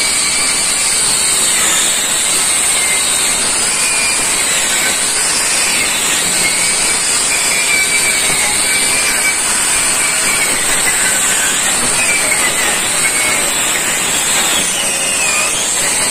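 Electric angle grinder running against the steel frame fork of a 1968 Volkswagen Beetle chassis: a loud, steady grinding whose pitch wavers up and down as the load on the disc changes.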